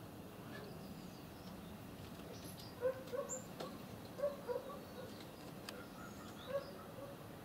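Short animal calls, two or three at a time, over a steady outdoor background, with a few sharp clicks.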